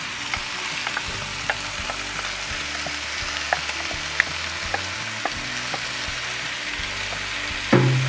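Chicken thighs, bacon and vegetables sizzling in a hot cast-iron Dutch oven: a steady hiss with scattered crackles and pops as barbecue sauce goes over them. A single knock near the end.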